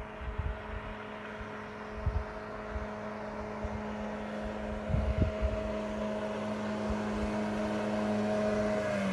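1982 Evinrude 15 hp two-stroke twin outboard motor running at a steady speed, growing louder as the boat approaches. Its pitch starts to drop right at the end. A few low thumps on the microphone are heard along the way.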